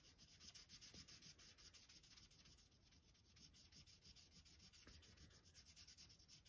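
Faint, quick, even back-and-forth scratching of a paper blending stump rubbing soft oil pastel into paper.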